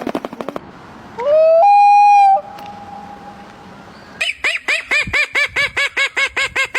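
Bird calls: one loud call that rises and then holds steady for about a second, and later a fast run of short repeated calls, about six a second.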